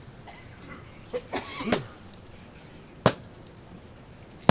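Quiet background broken by a short cough-like vocal sound about a second in, then two single sharp impacts about a second and a half apart.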